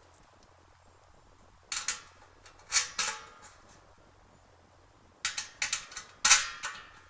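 Sharp metallic clinks in two clusters, a few about two to three seconds in and more from about five to six and a half seconds in: metal washers and wing nuts being set on the studs of a spun aluminium patio heater reflector.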